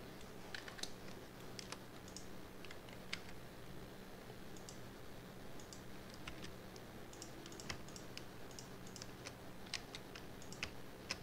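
Irregular clicks and taps of a computer keyboard and mouse being worked, some close together, some a second or more apart, over a faint steady low hum.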